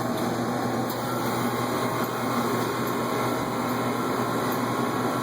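Steady mechanical hum of store equipment, such as refrigeration and air handling, with faint steady tones running through it.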